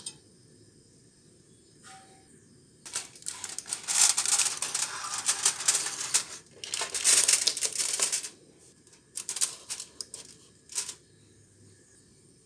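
Aluminium foil crinkling and rustling as a foil-covered cake tin is handled and set down in a metal steamer basket, in two stretches of a few seconds each, followed by a few sharp clicks and knocks near the end.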